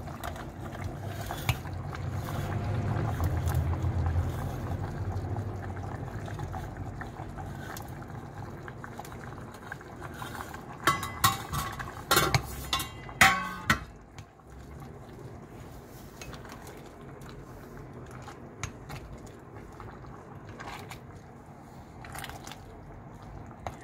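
Vegetable sauce boiling in a stainless-steel pot with a steady low bubbling, as fried meatballs are pushed off a metal plate into it with a metal spatula. A cluster of sharp clinks and scrapes of the spatula against the plate and pot rim comes a little past halfway.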